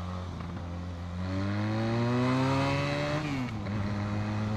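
Benelli 502C's 500 cc parallel-twin engine under way, its pitch rising steadily for about two seconds as the revs climb, then falling quickly about three seconds in and running on steadily at lower revs.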